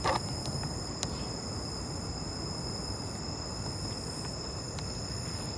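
Steady chorus of night insects, several high, unbroken tones held at even pitch over a low background hiss, with a sharp click at the start and a fainter one about a second in.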